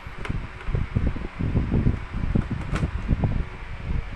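Rustling and bumping of a power cord and plug being handled and pushed into a wall socket, with a few sharp clicks.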